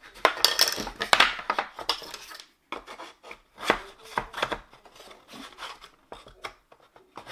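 Thin wooden panels clacking and scraping against each other as slotted dividers are worked into place by hand: a dense run of knocks and rubbing in the first two seconds, then scattered lighter taps and clicks.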